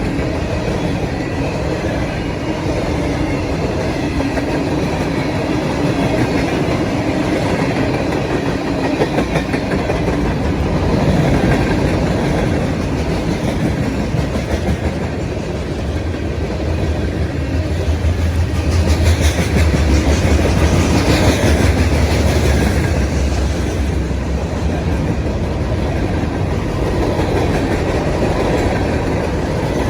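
Freight train rolling past, its cars' wheels clacking over the rail joints, with a heavy low rumble that swells in the middle and then eases.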